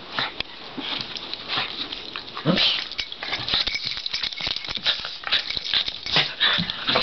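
Two Cairn terriers play-wrestling at close range: a busy, irregular scuffling and rattling, broken by a few short growls, one about two and a half seconds in and more near the end.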